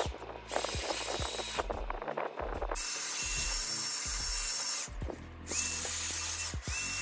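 Handheld electric air duster blowing air in several bursts of a second or two. It is switched on and off repeatedly, and each burst is a rushing hiss over a thin motor whine that rises as it spins up. It is being used to blow dust off figures.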